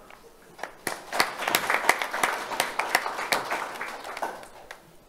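Audience applauding with clapping that starts about a second in and dies away near the end.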